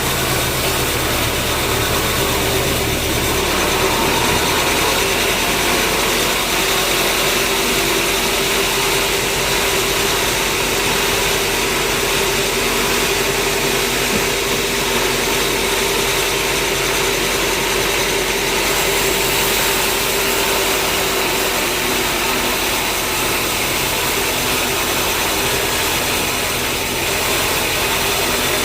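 Sawmill machinery running steadily: a loud, constant mechanical drone with a steady hum. A deeper rumble drops away about three to four seconds in.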